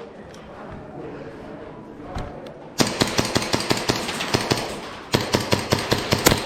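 Rapid airsoft gunfire: two quick strings of sharp shots, the first starting about three seconds in and the second about five seconds in.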